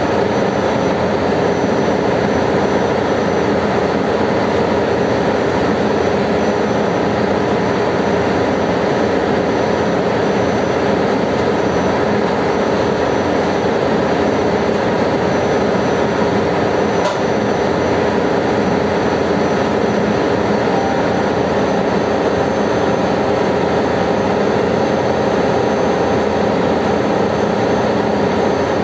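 Ship's engine-room machinery running steadily: a loud, even drone with a few steady tones in it.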